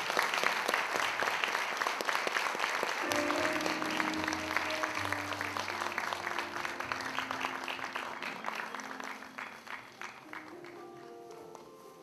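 Audience applauding, the clapping thinning out and fading over the last few seconds. Instrumental music with held notes comes in about three seconds in.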